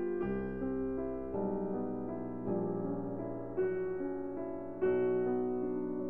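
Slow background piano music, a new note or chord struck about every second and left to ring.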